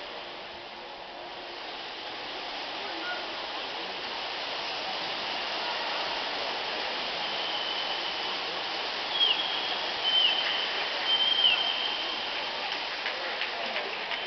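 Water splashing from swimmers racing butterfly, mixed with a steady wash of crowd noise that slowly grows louder. From about halfway in, a few shrill calls from spectators cut through.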